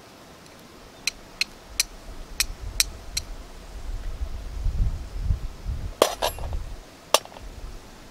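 Thin dry twigs snapped by hand: six light snaps in the first three seconds, then a few louder cracks about six and seven seconds in, with a low rumble in between.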